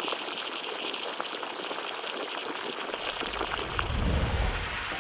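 Steamer boiling under a fish, a steady crackling hiss with scattered small pops, with a brief low rumble about four seconds in.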